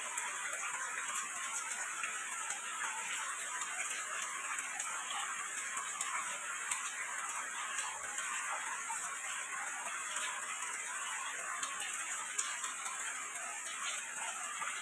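Light rain falling, a steady hiss of patter with many small drip ticks scattered through it.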